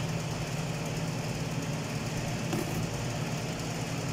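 Steady low machine drone, like an engine or motor running without change.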